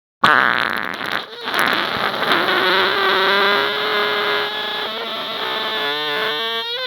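A long, loud fart that starts abruptly about a quarter second in and runs on with a fairly steady pitch. Near the end it breaks into a rapid flutter.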